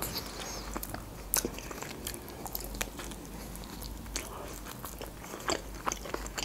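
Close-miked biting and chewing of a pan-fried khinkali dumpling dipped in tomato sauce, with wet mouth sounds and scattered sharp little clicks of the fried dough.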